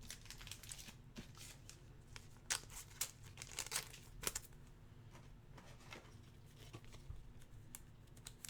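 Faint rustling and crinkling of trading cards and plastic being handled, with a few light clicks, most of them between about two and a half and four and a half seconds in.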